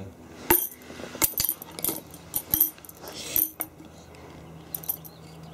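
Small tambourine tapped irregularly with a wooden stick by a baby. Each of about eight uneven hits gives a short tap and a jingle of the metal zils.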